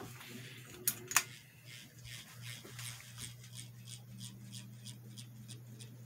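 Two sharp clicks of a ceiling fan's pull-chain switch about a second in. Then the cheaply made mid-2000s ceiling fan runs with a steady motor hum and a light tick about three times a second.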